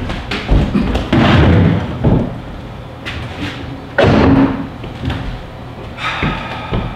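A performer's footsteps and thumps on a wooden stage floor, a run of irregular knocks, loudest about a second in and again about four seconds in.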